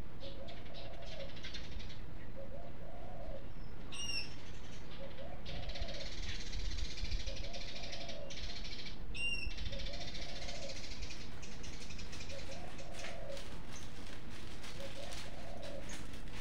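A dove cooing over and over, one short coo about every second and a quarter, over steady background noise. Two brief high chirps come about four and nine seconds in.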